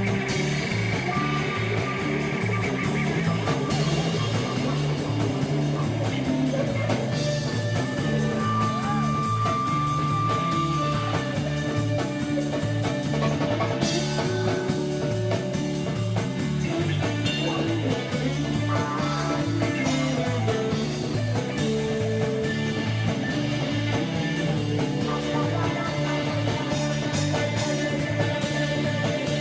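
A rock band playing a live jam: guitar over bass and drums in a steady rhythm, with long held guitar notes.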